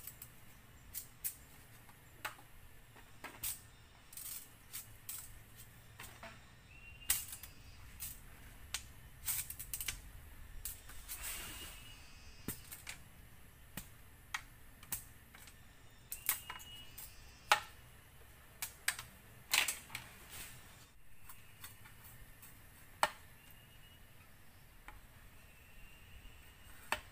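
Scattered light clicks and knocks of bamboo poles and strips being handled and set against each other, with a brief rustle about halfway through. A few faint short chirps come in now and then.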